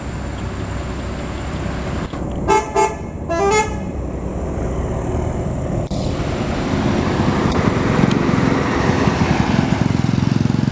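Tour bus telolet horn sounding three short musical notes about two and a half seconds in, over steady engine and road noise that grows louder toward the end as a vehicle draws near.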